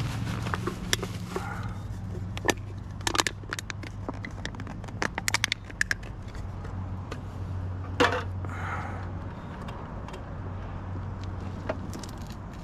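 Aluminum cans clinking and rattling as they are handled, in sharp light clicks with a quick flurry in the middle and one louder clank about eight seconds in, over a steady low hum.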